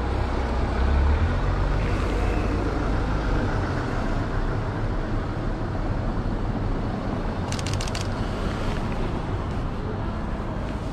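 A car driving past on a brick-paved street, a low rumble over steady street noise that fades after the first few seconds. About seven and a half seconds in comes a quick burst of several camera shutter clicks from a Canon 90D.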